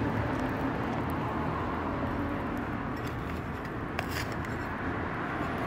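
Steady low background rumble and hiss, with a couple of faint scratchy clicks about three and four seconds in as fingers press potting soil around an amaryllis bulb.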